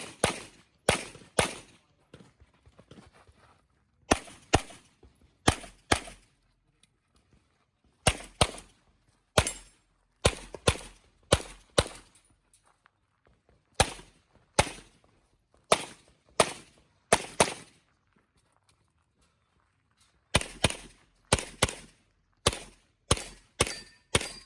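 Handgun fired rapidly during an IPSC stage: sharp shots in quick pairs and short strings, with breaks of a second or two between groups as the shooter moves and reloads. There are about thirty shots, the last string coming fast near the end.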